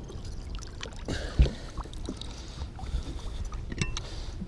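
Lake water sloshing against a fishing boat's hull as a pike is lifted out at the side, with a sharp knock about a second and a half in and a few small clicks near the end.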